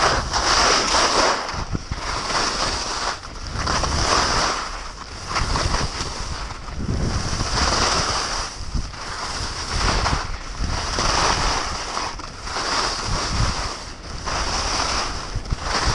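Skis scraping and hissing over packed snow through a run of turns, the sound swelling and fading every second or two, with wind rushing over the microphone.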